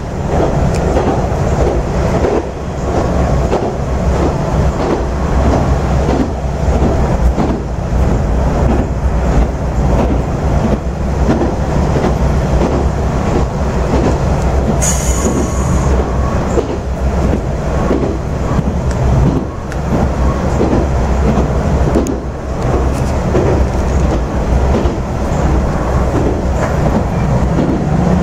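Interior of an AN8800-series diesel railcar running at speed: a steady low rumble of engine and wheels, with rhythmic clicks of the wheels over rail joints. A brief high-pitched squeal about halfway through.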